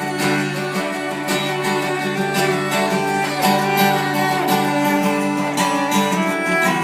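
Acoustic music: plucked strings played in quick repeated notes over a low note that is held throughout.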